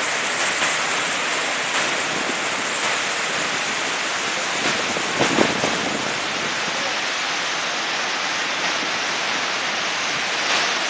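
Steady rush of the Niagara River's rapids pouring over the brink of Niagara Falls, with a brief louder swell about five seconds in.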